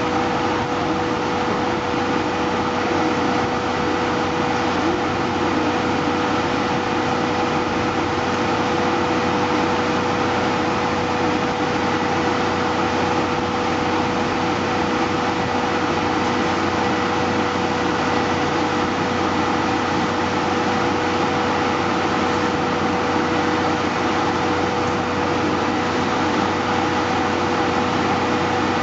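C57-class steam locomotive standing in steam: a steady hiss with a constant whine and hum, unchanging throughout.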